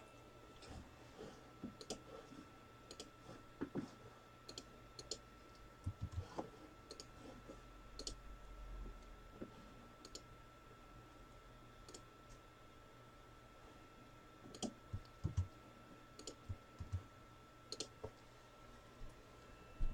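Faint, scattered clicks and taps of trading cards being handled and shuffled on a table.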